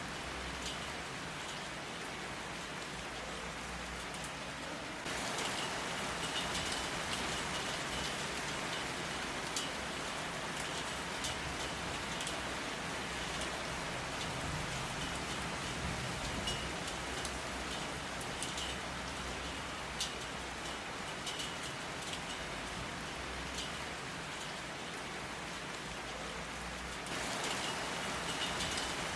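Steady rain falling, with many single drops ticking sharply against a surface. It gets a step louder about five seconds in.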